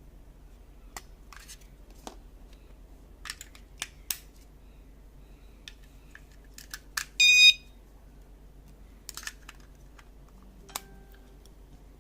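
SF18C wireless magnetic door alarm being handled, with a scatter of sharp plastic clicks, then one short, loud, high-pitched beep from the alarm about seven seconds in.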